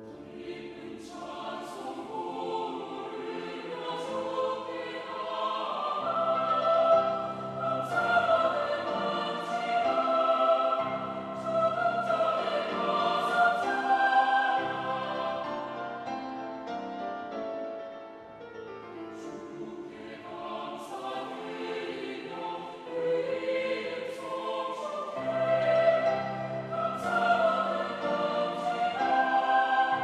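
Mixed choir singing a Korean-language sacred anthem with piano accompaniment. It enters softly and swells, falls back quieter about eighteen seconds in, then builds again.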